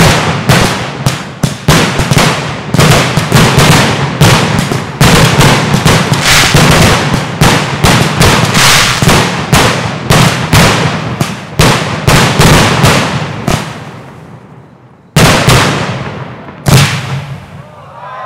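Aerial firework shells bursting in a rapid barrage, about two to three bangs a second, typical of a display's finale. The barrage thins out about 13 seconds in, followed by two last loud bangs near the end.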